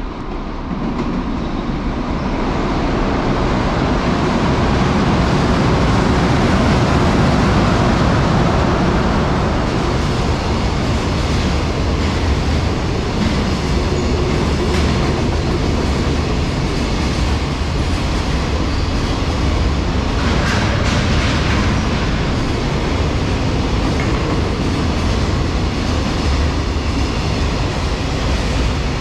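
JR Freight EH500 electric locomotive and its long rake of container wagons passing through a station at speed. The sound builds over the first few seconds as the locomotive approaches and goes by. The wagons' wheels then rumble steadily over the rails, with a brief patch of clatter about two-thirds of the way through.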